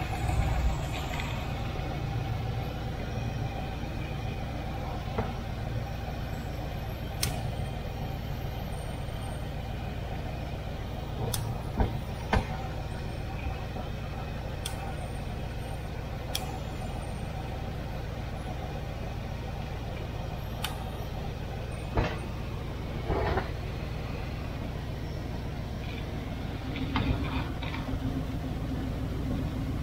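Chrysler 360 V8 with a four-barrel carburettor idling steadily, with a handful of sharp clicks and knocks scattered through it.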